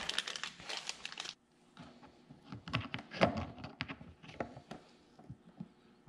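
Small plastic bag of LED bulbs crinkling as it is handled and opened, dense for about the first second, then scattered lighter clicks and rustles of handling.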